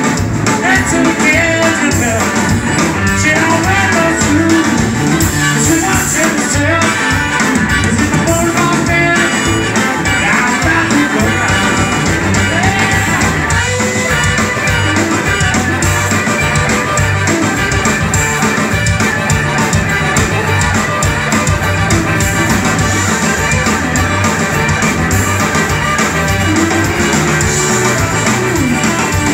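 Live blues-rock band playing: Telecaster-style electric guitar over bass and drums, with a harmonica played into a cupped microphone.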